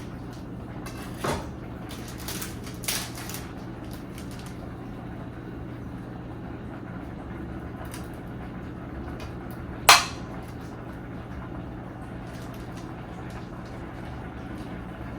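Kitchen handling noises: a few light knocks of containers being picked up and set down, then one sharp knock about ten seconds in, over a steady low hum.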